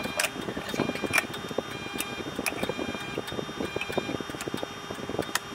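Light clicks and taps on a small plastic Dasai car-companion gadget as it is pressed, with about six short, high electronic beeps, over a low engine rumble.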